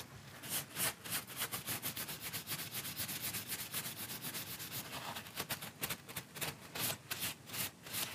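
A cloth pad rubbing shellac onto a wooden chisel handle in quick, repeated strokes.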